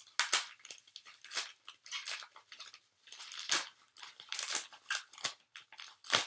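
Thin blue wrapping paper crinkling and rustling in a string of irregular bursts as it is pulled open by hand, with the sharpest crackle near the end.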